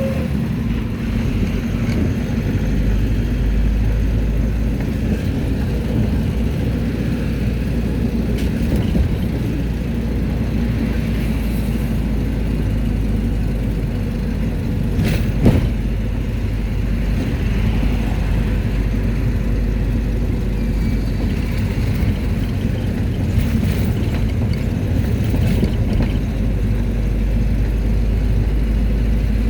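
Mercedes-Benz T1 minibus driving along, heard from inside: a steady engine and road rumble, with one sharp knock about fifteen seconds in.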